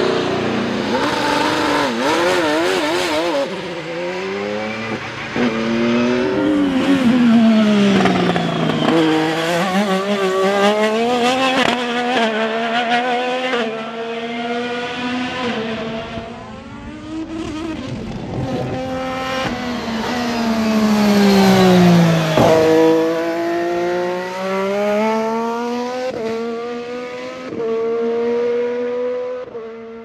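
IndyCar race cars with 2.2-litre twin-turbo V6 engines and the 2024 hybrid energy-recovery system at speed on a road course, at full racing volume. The engine note drops through downshifts under braking and climbs again through the gears, over and over, with two long sweeps down and back up.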